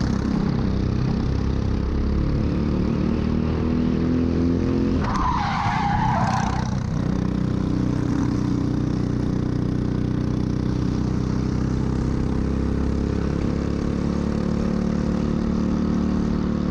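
Onboard sound of a Briggs & Stratton LO206 single-cylinder four-stroke kart engine. About five seconds in, the tyres skid for about two seconds as the kart spins and slows almost to a stop. The engine note falls away, then rises again as the kart accelerates back up to speed.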